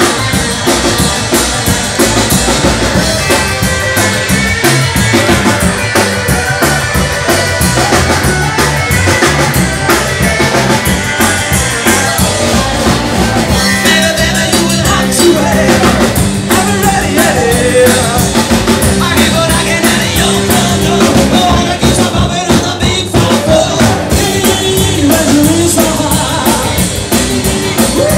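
Live rock and roll band playing loudly: electric guitar and drum kit with a singer.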